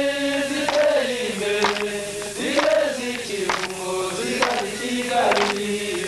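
A group of voices chanting in long held notes that step down in pitch between phrases, with short sharp strokes in between.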